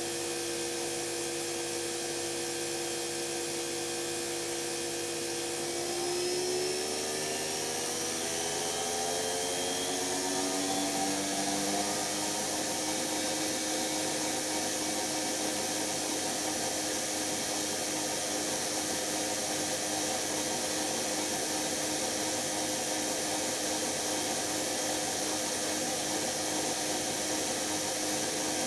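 Electra ELEC1647A3 washing machine's brushed motor running with a steady whine, its pitch climbing between about six and twelve seconds in as it speeds up, then holding steady. The motor's commutator is damaged and it is failing.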